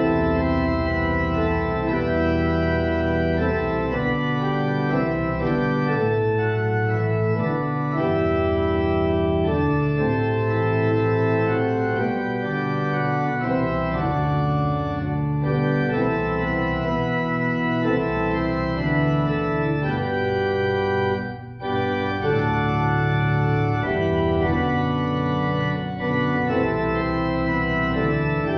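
Church organ playing sustained chords that change every second or two, with a short break between phrases about three quarters of the way through.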